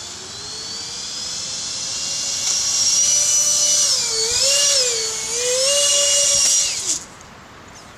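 Brushless electric motor of an RC jet plane whining at high speed. The pitch climbs steadily as it spools up, wavers up and down with throttle changes, then cuts off suddenly about seven seconds in.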